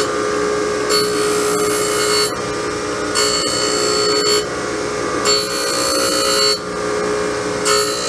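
Surface grinder running with a steady hum from the wheel, and a high grinding sound each time the table carries the cast-iron camelback straight edge under the wheel. There are four passes about two seconds apart, each over a second long, as a light dry cut of about a thousandth of an inch is skimmed off the top face.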